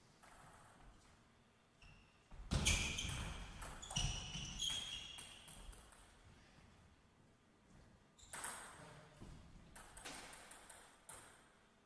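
Two short table tennis rallies: the ball clicking off the rackets and pinging on the table in quick strokes. The first starts about two and a half seconds in and the second about eight seconds in.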